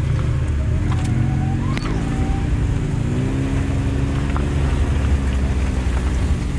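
Side-by-side UTV engine running at low speed over a rough dirt trail, its pitch rising a little about three seconds in as the throttle opens, then holding steady.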